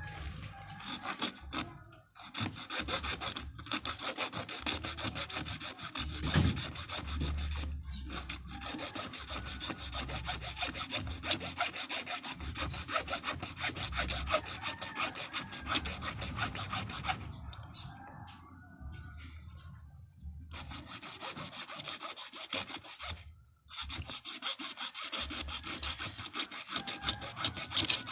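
A bare hacksaw blade, held in the hand without a frame, sawing back and forth through a small capacitor in fast, rasping strokes. It stops briefly a few times, with a longer lull past the middle.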